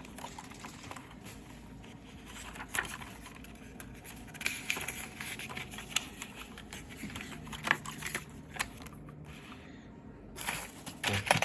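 Paper and packaging handled, rustling and crinkling with scattered sharp taps. Near the end, a quick run of clicks from the keys of a mechanical keyboard being pressed.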